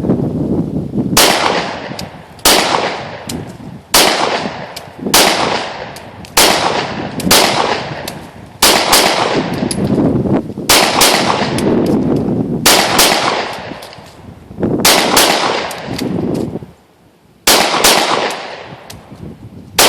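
A Glock 17 9mm semi-automatic pistol firing 115-grain FMJ rounds: about sixteen shots at roughly one-second intervals, a few fired as quick doubles toward the end. Each shot is followed by a long echoing decay.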